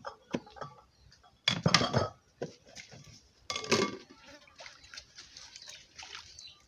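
Bowls and utensils knocking and scraping together while ingredients are handled, with two louder clattering scrapes about one and a half and three and a half seconds in, then light clicking and rustling.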